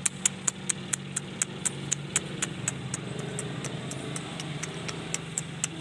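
Sharp, evenly spaced mechanical ticks, about four a second, over a steady low hum.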